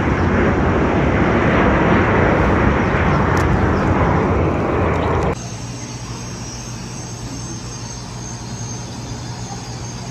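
Airplane passing low overhead: a loud, steady rush of engine noise. It cuts off abruptly about five seconds in, giving way to a much quieter steady machine hum.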